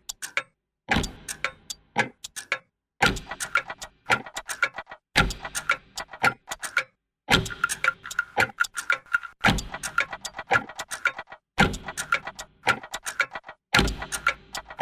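Looped clockwork soundtrack of ticking and ratcheting: about every two seconds a burst of quick clicks, opening with a low thud, is followed by a short silence.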